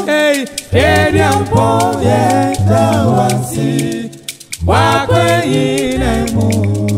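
Male a cappella group singing a highlife song in close harmony over a held bass line, phrases breaking off briefly twice. A beaded gourd shaker (shekere) keeps a steady beat underneath.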